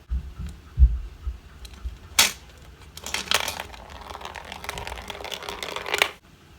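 Plastic toy capsules being handled: a few dull bumps, a sharp click about two seconds in, then about three seconds of close rustling and clicking of plastic that stops abruptly.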